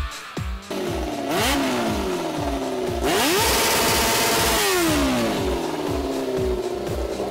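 Go-kart's four-cylinder engine revving: a quick blip about a second in, then a hard rise held high for about a second and a half before it drops back to idle. A dance-music beat thumps steadily underneath.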